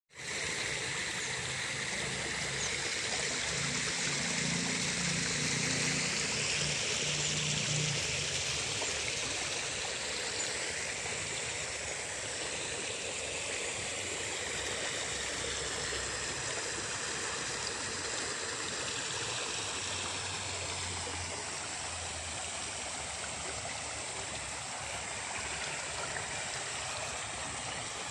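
Water running steadily along a shallow irrigation ditch, an even rushing and trickling sound.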